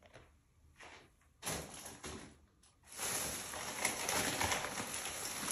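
A brief knock about a second and a half in, then a plastic shopping bag rustling and crinkling continuously from about three seconds in as hands rummage through it.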